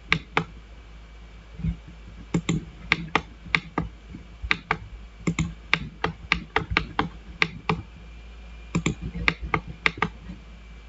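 Computer mouse and keyboard clicking: an irregular string of sharp clicks, about three a second, some in quick pairs, with a couple of short pauses, as lines are trimmed in a CAD program.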